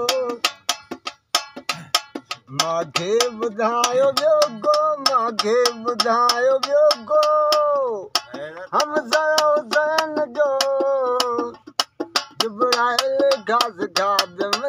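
A man singing a Sindhi Sufi devotional song in long, held, wavering notes, over a quick, even clicking percussion beat. The voice breaks off twice for a moment while the clicking keeps time.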